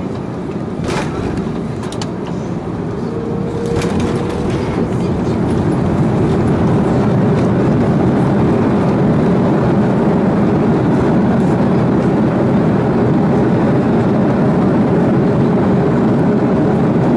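Cabin noise of an Airbus A330-300 on its landing roll: a couple of knocks near the start, then the rush of the engines and air grows louder from about four seconds in and holds steady and loud.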